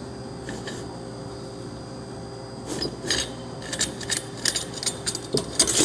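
Metal scraping and clinking as the top half of a GE T58 turboshaft's compressor case is worked loose and lifted off the rotor. The clinks begin about halfway through and come quickly near the end.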